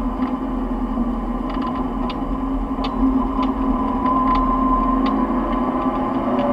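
Nissan 180SX engine heard from inside the cabin at speed on track: a steady drone, with a higher tone that rises slightly about four seconds in. Scattered sharp ticks come through over it.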